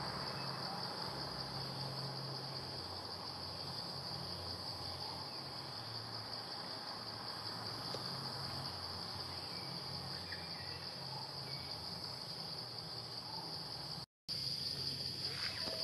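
Steady, high-pitched chorus of insects chirring without pause. It cuts out completely for a split second near the end.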